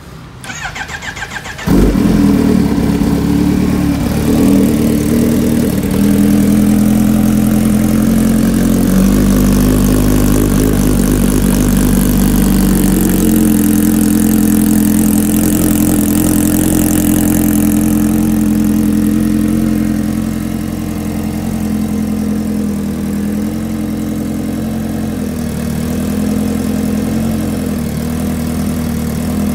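Kawasaki Ninja H2R's supercharged inline-four engine cranked by its starter for about a second and a half, catching about two seconds in, then running at a steady idle.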